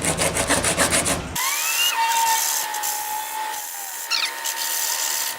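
Hand sanding of walnut with sandpaper: quick, even back-and-forth rubbing strokes for about a second and a half, then it cuts to a quieter stretch. There a long call rises and then holds steady, with short high chirps near the end.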